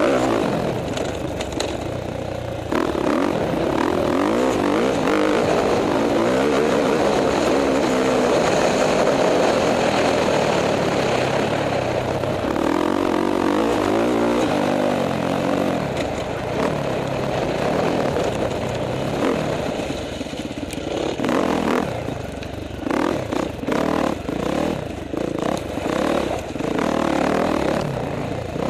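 KTM 450 XC-F dirt bike's four-stroke single-cylinder engine being ridden hard, revving up and down as the throttle is worked. In the last third the throttle goes on and off in short, choppy bursts.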